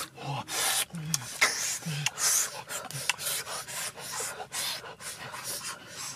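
A man blowing hard on the embers of a cooking fire: a rapid, irregular run of short breathy puffs.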